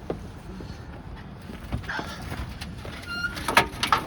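Steady road and engine noise inside a moving pickup truck's cab, with a few sharp clicks and knocks near the end.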